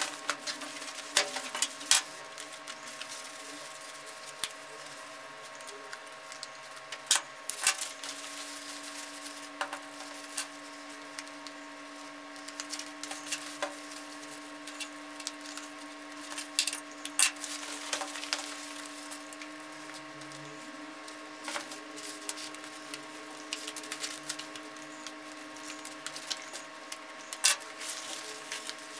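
Black denim jeans and string being handled and tied by hand on a plastic-covered table: scattered rustles and light clicks over a faint steady hum.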